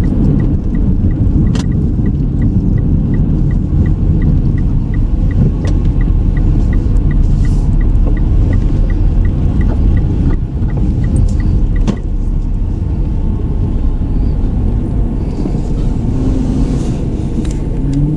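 Car on the move heard from inside, with a steady low road and engine rumble. A turn-signal indicator ticks about three times a second and stops with a click about twelve seconds in.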